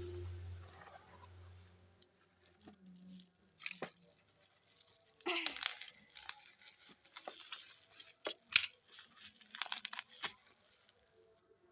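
Irregular crunching, crackling and tearing of packaging being handled and pulled open around a broken glass jar, in scattered bursts from about five seconds in. A low steady hum sounds in the first two seconds.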